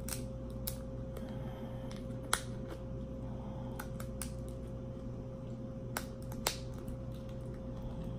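Sharp cracks and snaps of a cooked king crab leg's shell being broken apart and peeled by hand: a handful of scattered clicks, the loudest about two seconds in. A steady faint hum runs underneath.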